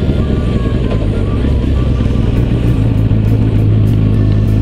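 Kawasaki ZZR400 inline-four motorcycle engine running at low speed under a dense rushing noise, settling into a steady low hum about halfway through.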